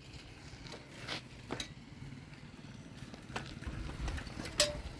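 Scattered footstep scuffs and crackles on dry dirt and grass, a few sharp ticks among them, with a low rumble coming in a little after halfway.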